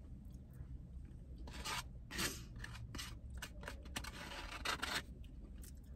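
Plastic spoon scraping the inside of a foam cup of chili in a few short, separate strokes, along with eating sounds, over a steady low hum.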